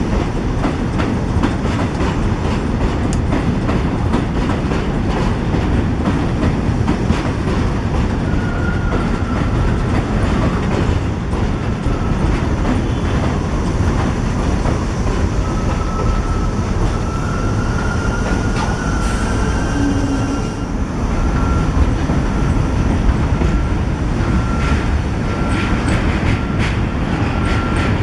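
New York City subway 1 train of R62A cars running along the platform: a loud, steady rumble with the clickety-clack of wheels over rail joints. From about eight seconds in, a thin high wheel squeal comes and goes.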